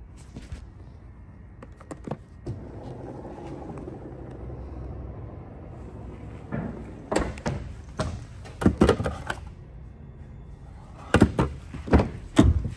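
Power liftgate of an SUV closing: a steady motor whirr for about three seconds. It is followed by two clusters of loud knocks and thumps.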